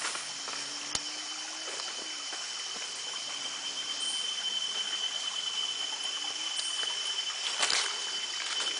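Jungle ambience along a forest trail: an even hiss with a steady high-pitched tone held throughout, and a few sharp footsteps or twig snaps, most of them near the end.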